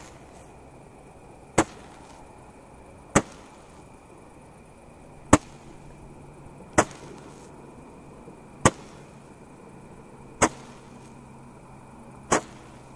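Joker Fireworks Roman candle firing its shots: seven sharp pops, one about every one and a half to two seconds.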